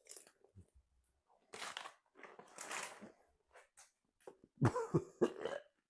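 A man chewing a mouthful of flavoured popcorn, then about three harsh coughs close together in the second half, the loudest sounds, as the taste makes him gag.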